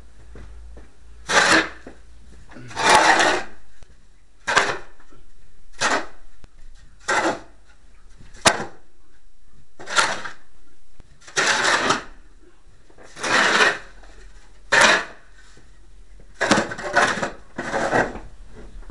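Snow being crunched and scraped: about a dozen short, separate scrapes roughly a second apart, several starting with a sharp click.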